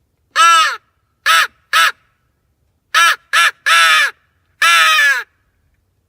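Crow calling used to call in crows: seven loud caws in uneven groups, the last and longest ending about five seconds in.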